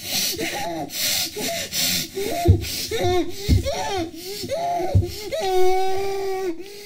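A person's wordless, strained vocal sounds: breathy moans and cries that end in one long held cry near the end. Three low thuds land about two and a half, three and a half and five seconds in.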